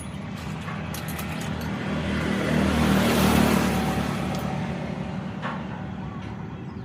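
Motorboat passing by on the canal, its engine growing louder to a peak about three seconds in and then fading away.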